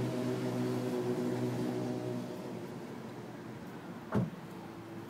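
Exhaust note of a 2012 Honda Civic LX coupe's 1.8-litre four-cylinder running through a 2009 Civic Si exhaust, fitted without modification. The note is steady, then grows quieter a little over two seconds in, with a brief thump about four seconds in.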